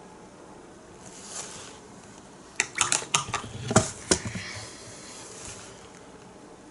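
A quick run of about ten light clicks and clinks, some sharper and one or two heavier knocks, from small hard objects being handled on the work table, about two and a half seconds in and lasting under two seconds; soft brushing before and after.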